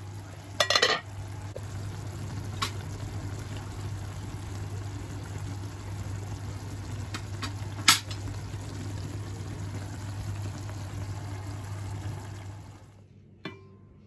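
Steady kitchen cooking noise with a low hum, broken by a few sharp clinks of a utensil against cookware, the loudest about halfway through. Near the end the steady noise stops and a single ringing clink follows.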